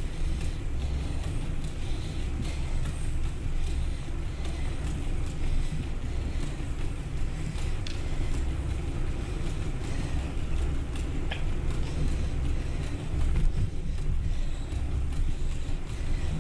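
Steady, gusty rumble of wind on the microphone and tyre noise from a bicycle riding along a trail, with a few faint clicks about halfway through.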